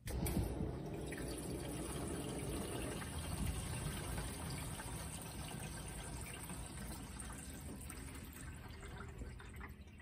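Water running through the plumbing and the stainless steel UV sterilizer chamber: a steady rush that starts suddenly and slowly fades.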